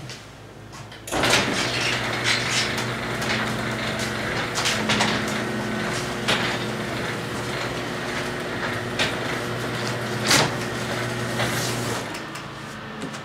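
Electric garage door opener running as the overhead door goes up: a steady motor hum with rattling and clicks, starting about a second in and stopping about twelve seconds in.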